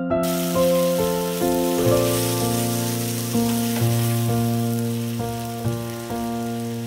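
Okra and prawns sizzling in a wok as they are stir-fried, a steady frying hiss that starts just after the opening. Soft electric-piano background music plays throughout.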